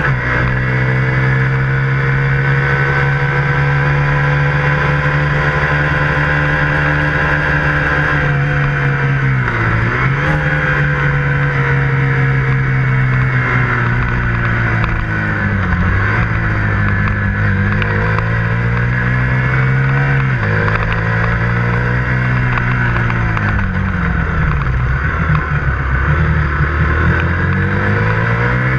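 KTM 125 Duke's single-cylinder four-stroke engine running under way, heard from on the bike. Its steady drone falls in pitch and climbs again several times, first about ten seconds in and then every few seconds.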